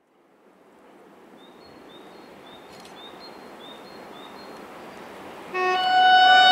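Steady noise of an approaching SM31 diesel locomotive growing louder, with a small bird chirping repeatedly, about six short chirps. About five and a half seconds in, the locomotive's horn sounds, loud and held, several tones together.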